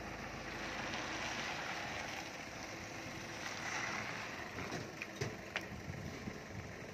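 Hyundai light truck's engine idling, with wind noise on the microphone. Two sharp knocks about five seconds in.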